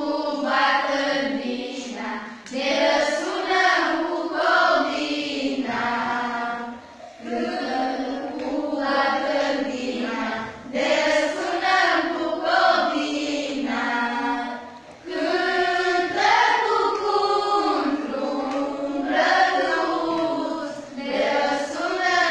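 A group of girls and women singing a song together, in long phrases separated by short pauses.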